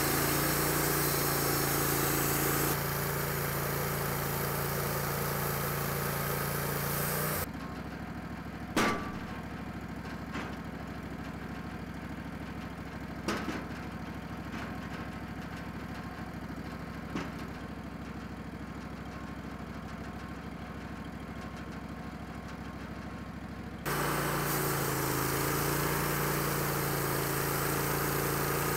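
Wood-Mizer LT15 Wide band sawmill running and sawing through a cant, a loud steady engine and blade noise. About seven seconds in, it drops to a quieter engine idle with a few sharp wooden knocks as the cant is moved on the mill bed. Near the end, loud sawing starts again.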